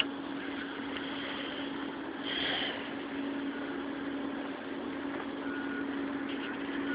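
Steady drone of idling machinery holding one low pitch. A brief louder rush of noise comes about two and a half seconds in, and faint short beeps sound near the end.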